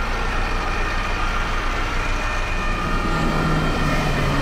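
A fire engine's engine running steadily at a low rumble, with a few steady high tones above it. A deeper hum comes in about three seconds in.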